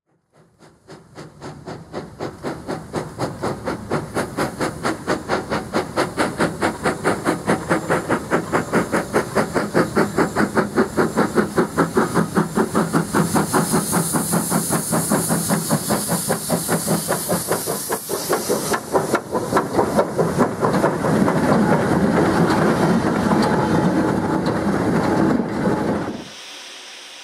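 An Avonside saddle-tank steam locomotive working hard with a heavy freight train: a steady beat of exhaust at about three beats a second, with steam hissing from the cylinders. It builds up in the first few seconds, and the sound cuts off shortly before the end.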